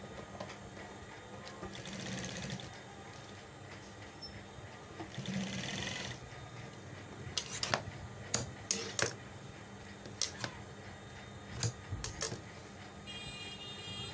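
Industrial sewing machine running in two short bursts as trim is stitched onto fabric, followed by a series of sharp snips of tailor's shears trimming the threads and seam.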